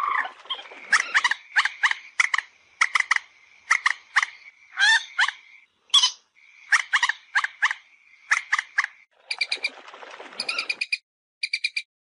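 Common moorhen calling: loud, harsh clucking notes in quick groups of two to four, then near the end a fast series of short high pips.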